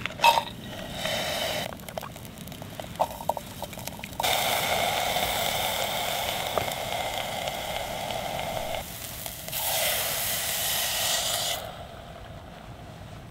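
Bacon, onions and peppers sizzling and hissing in a Jetboil MiniMo cook pot over its gas burner. There are a few clicks and a short burst in the first two seconds, then two long stretches of steady sizzling, the first starting about four seconds in, both over by about twelve seconds.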